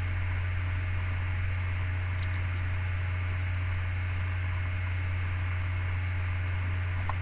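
Steady low electrical hum with hiss from the recording setup, and a single short click about two seconds in.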